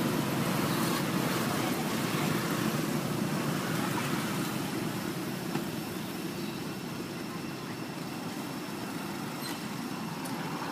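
Steady road traffic noise from passing cars and motorbikes, an even low hum without clear starts or stops.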